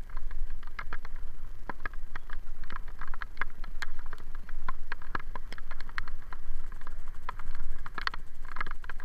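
Irregular sharp ticks and taps, several a second, on a bicycle-mounted camera riding in rain, over a steady low rumble of wind and road.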